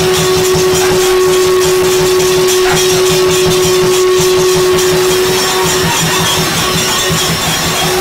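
Puja sounds at a temple shrine: a long, steady held tone that breaks off briefly near the end, over a fast, regular beat of strikes.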